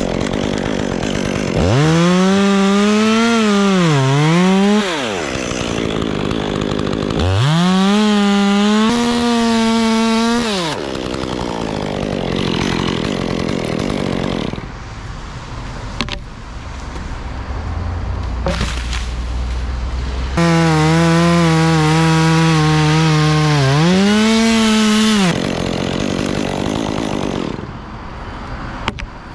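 Chainsaw cutting wood in three revved bursts, its engine pitch dipping under load during the cuts and rising again. A lower engine idles between the bursts.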